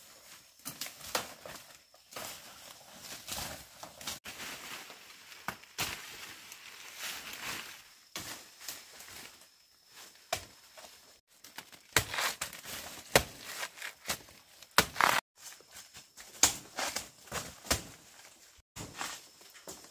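Dry leaves and plant stems rustling and crunching, with irregular sharp snaps that come louder and more often in the second half.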